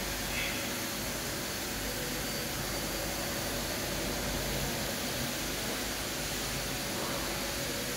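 Steady hiss and hum of a running CNC vertical machining centre, its spindle turning slowly at 10 RPM with a master mandrel fitted, the level even throughout.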